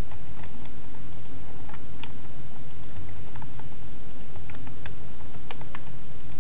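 Computer keyboard and mouse clicking at irregular intervals, over a steady low hum.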